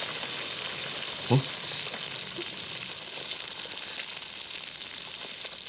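A steady crackling hiss, like frying, throughout, with one short, louder low sound about a second in.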